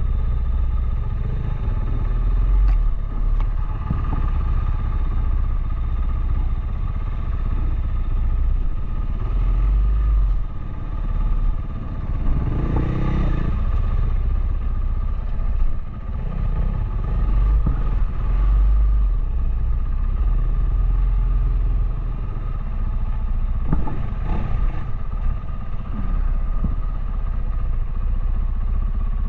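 Dual-sport motorcycle engine running with a steady low rumble, swelling a few times as the throttle changes.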